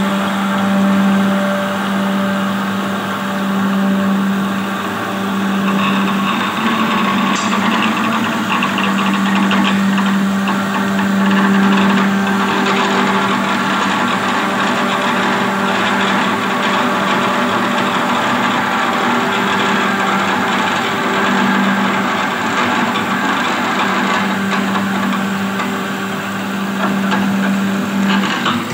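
Metal-cutting band saw cutting through a bundle of steel pipes: a steady motor hum under the continuous grinding of the blade in the steel.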